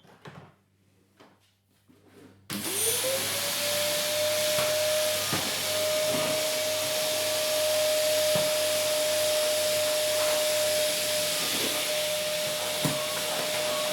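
Vacuum cleaner switched on about two and a half seconds in. Its motor whine rises quickly to one steady pitch over a loud rush of air and runs on evenly. Before it starts there are a few faint knocks.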